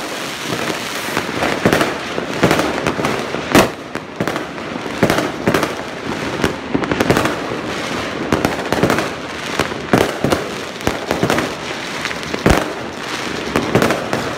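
Many fireworks going off at once: a dense, continuous crackle of bangs and booms from aerial bursts, with sharper, louder reports standing out about three and a half seconds in and again about two seconds before the end.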